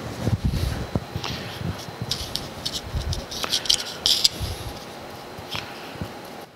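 Light scraping and clicking of a small tool working grease into the jaw slots of a steel 8-inch Cushman four-jaw lathe chuck, with soft low bumps from handling; the clicks cluster in the middle.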